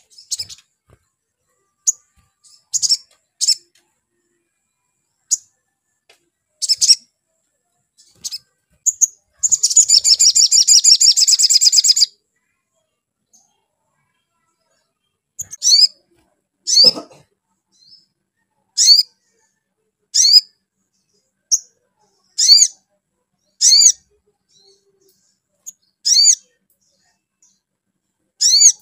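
Male olive-backed sunbird calling: scattered sharp, high chirps, then a rapid trill lasting about two and a half seconds, then a run of repeated high slurred notes roughly every second and a half. A brief lower call cuts in once, about seventeen seconds in.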